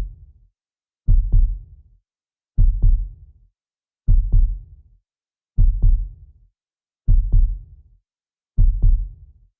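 Slow heartbeat, a low double thump (lub-dub) repeating about every second and a half, six beats, with silence between them.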